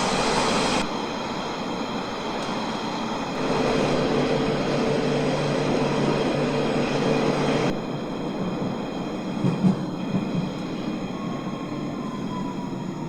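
London Underground 1992 Stock train heard from inside the carriage, running with a steady rumble and a held tone from its traction equipment. Near the end a whine falls slowly in pitch as the train slows.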